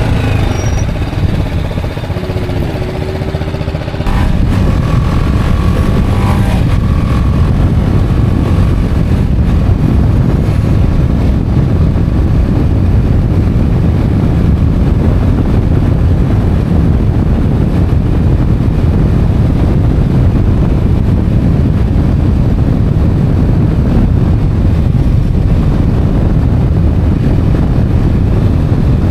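Motorcycle riding: the engine pulls with its pitch shifting for the first few seconds. Then a loud, steady rush of wind on the microphone takes over at speed, with the engine running beneath it.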